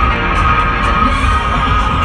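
Loud electronic dance music from a festival sound system, with heavy, pulsing bass under sustained synth tones.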